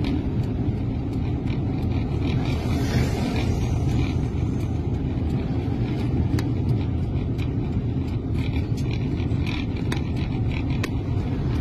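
Steady low road and engine rumble heard from inside a moving vehicle, with a few short clicks and rattles scattered through it.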